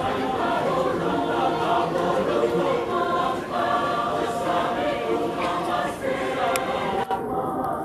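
Mixed choir of men and women singing together in parts. Near the end the sound breaks briefly and then turns duller.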